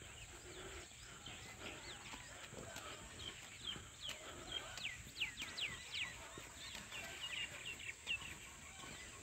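Small birds calling: a quick string of short, high chirps that sweep downward, busiest in the middle of the stretch, faint over a steady background hiss.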